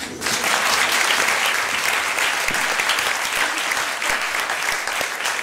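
Audience applause: many hands clapping at once. It breaks out suddenly and keeps up at an even level.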